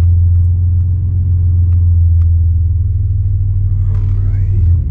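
Car engine and low steady rumble heard from inside the cabin as the car is moved slowly.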